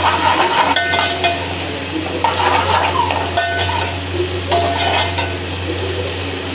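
A metal spatula stirs and scrapes sliced cabbage and green peppers around an aluminium pot while the oil sizzles. Several short metallic scrapes ring out against the pot.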